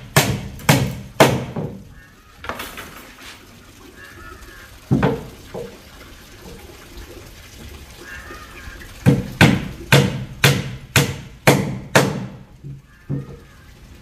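Hammer driving nails into wooden planks. Three quick blows at the start, a single blow about five seconds in, then a run of about seven blows at roughly two a second near the end, with one more after a short pause.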